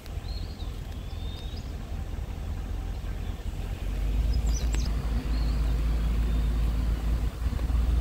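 A car driving slowly makes a low rumble of road and wind noise, with wind buffeting the microphone. The rumble grows louder about four seconds in. A few faint high chirps sound over it.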